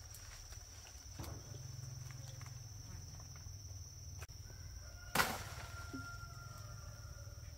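Chickens in the background, with a steady high-pitched whine throughout and one sharp knock about five seconds in.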